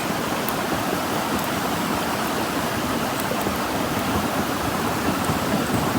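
River water rushing steadily, with a few faint ticks over it.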